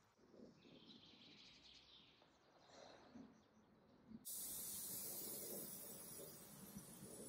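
Aerosol can of satin cellulose lacquer spraying in one steady hiss that starts abruptly about four seconds in, laying a finish coat on stained wood.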